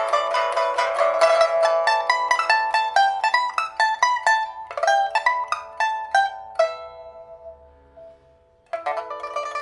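Solo pipa with an African rosewood body and a newly replaced soundboard and frets, played as a test after repair: fast runs of rapidly plucked notes, then a single note left ringing and dying away for about two seconds, before rapid plucking starts again near the end.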